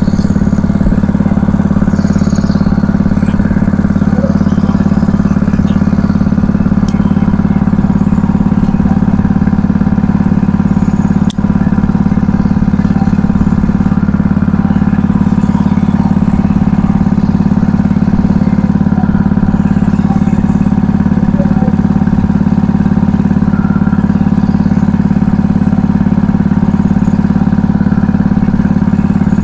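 Small engine on a fishing boat running steadily at a constant speed, an even drone.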